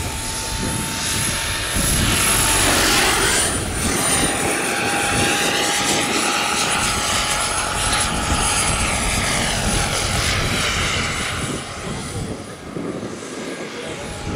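Jakadofsky Pro 7000 model gas turbine driving a scale Lama helicopter in flight: a steady high turbine whistle over a lower tone and the rush of the rotor. About three seconds in, the pitch drops slightly as the helicopter passes, and the sound eases near the end.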